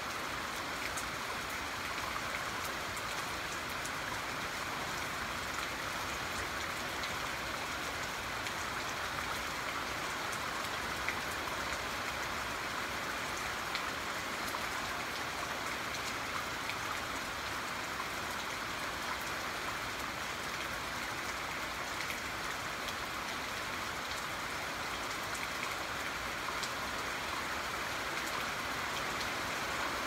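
Steady rain falling, an even hiss with scattered individual drops ticking.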